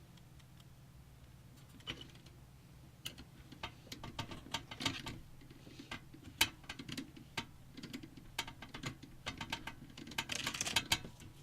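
Irregular small clicks and taps of a computer case fan and its screws being handled and fitted into a PC case, growing busier near the end, over a faint steady low hum.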